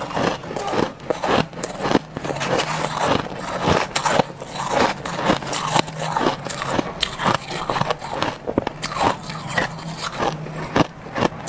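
Close-up crunching of soft crushed freezer frost being bitten and chewed, a dense run of irregular crackles, mixed with a metal spoon scraping through the ice in a stainless steel bowl.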